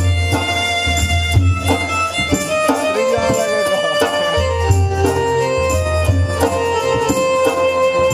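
Instrumental music: a bowed-string melody with long held notes over a steady beat and deep bass.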